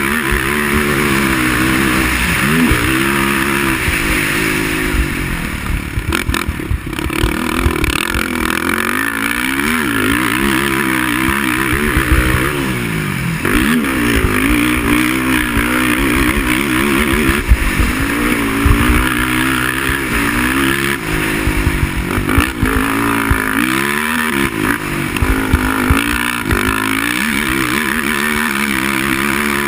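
Racing quad (ATV) engine under hard use, revving up and dropping back again and again as the pitch climbs and falls.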